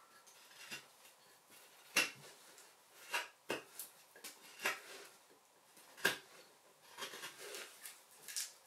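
Irregular sharp clicks and knocks of small hard objects being handled and set down, about one or two a second, the loudest about two and six seconds in.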